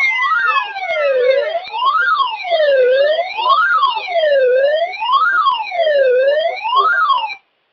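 Electronic siren wailing, its pitch rising and falling about every second and a half for five cycles, then cutting off abruptly near the end.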